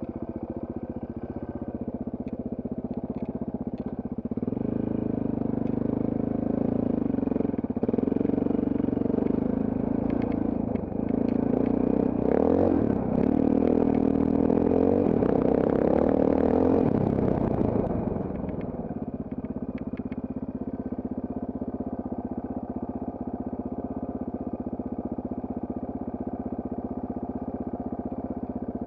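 Trail motorcycle engine running steadily, then louder from about four seconds in, its revs rising and falling with the throttle through the middle, before settling back to a steady, quieter running near two-thirds of the way through.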